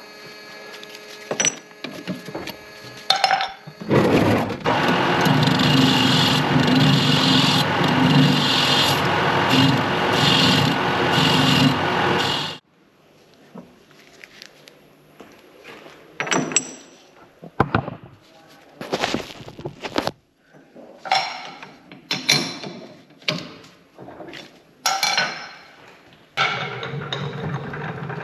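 Metalworking in a machine shop: a machine runs loudly and steadily for about eight seconds and cuts off suddenly, followed by scattered clinks and scrapes of parts and tools being handled.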